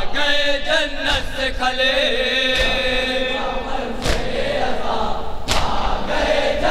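Men's voices chanting a nauha, a Shia mourning lament, together. Sharp strokes of hands striking chests in unison (matam) land about every one and a half seconds.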